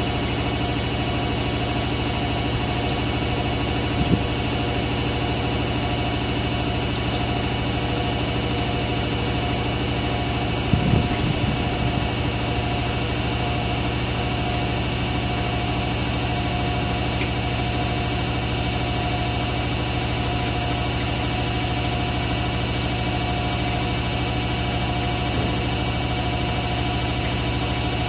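Hoover A3308 Computer Control 1100 washing machine spinning its drum during the final spin, a steady motor whine and hum. There is a single knock about four seconds in and a short cluster of thumps around eleven seconds.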